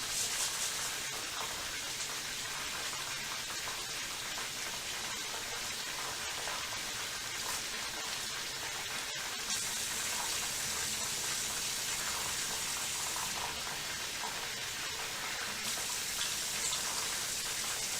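Kitchen tap running into a bowl as parboiled rice is washed by hand: a steady rush of water that shifts slightly about halfway through.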